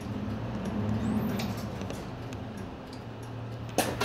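Nissan Space Runner city bus's diesel engine idling with a steady low hum inside the cabin, with faint ticking over it. A sharp click comes near the end.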